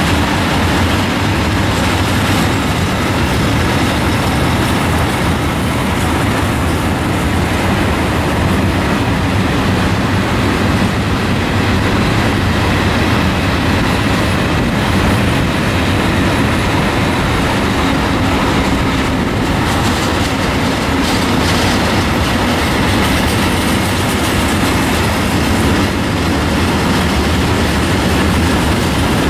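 A long freight train's wagons rolling past, steel wheels running over the rails. The sound is loud and steady throughout.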